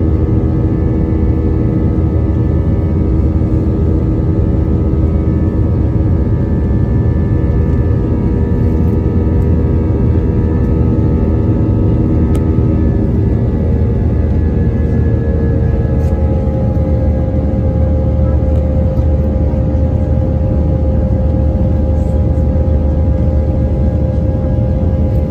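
Cabin noise of an Airbus A320-232 climbing out, heard from a window seat beside the wing: a loud, steady rumble from its IAE V2500 turbofan engines with several humming tones. The tones shift about two-thirds of the way through, with a new steady hum taking over.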